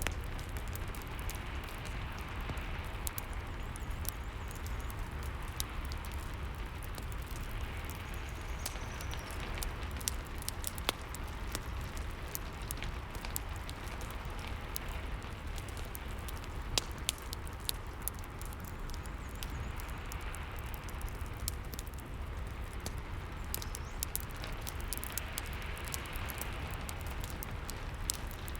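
Steady rain mixed with the irregular pops and crackles of a wood fire, over a steady low rumble.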